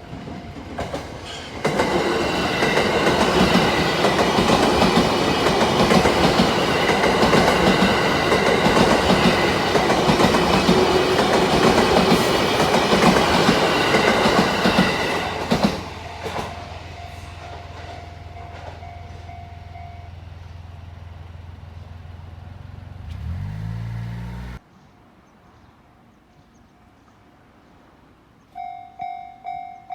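A train passes over a level crossing, loud for about fourteen seconds, with the crossing's warning bell ringing; the bell carries on for a few seconds after the train and stops. A low hum with a short rising whine follows and cuts off suddenly. Near the end, the level-crossing warning bell starts again, ringing in quick repeated strokes, about two to three a second.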